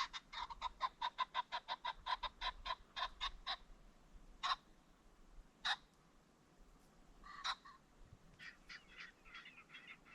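Ring-necked pheasant calling: a fast run of sharp clucking notes, about seven a second, for three and a half seconds, then a few single calls and a softer cluster of notes near the end.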